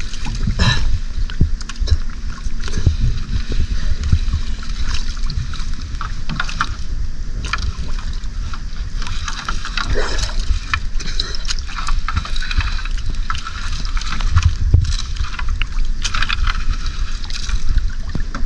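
Sea water sloshing and gurgling against the hull of a small outrigger boat, with wind on the microphone. Irregular small knocks and splashes come through as a fishing net is worked over the side.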